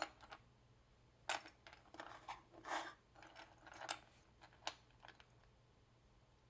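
Small plastic model-kit parts being handled, sorted and set down on a table: a few sharp clicks and taps with short bursts of rustling between them, stopping about five seconds in.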